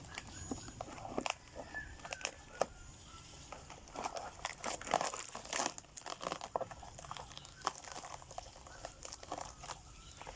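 Thin plastic packaging crinkling and rustling as it is handled, in irregular crackles; it has just torn open.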